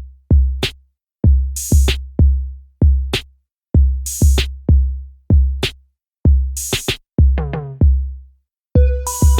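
Electronic dance music with a drum-machine beat: deep bass-drum hits about twice a second, with a cymbal crash every two and a half seconds. About three quarters of the way through comes a quick fill of drum hits falling in pitch, and melodic notes enter right at the end.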